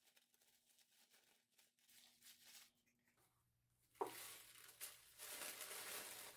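Near silence, then about four seconds in, tissue paper starts rustling and crinkling as it is unfolded by hand.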